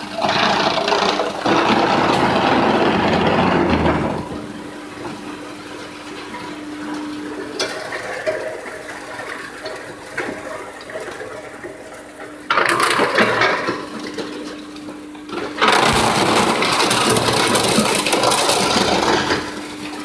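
A wood-pallet chipper (crusher) runs with a steady hum. Three spells of loud crushing and grinding come as wood is fed in and chipped: one of about four seconds at the start, one about twelve seconds in, and a longer one starting about sixteen seconds in.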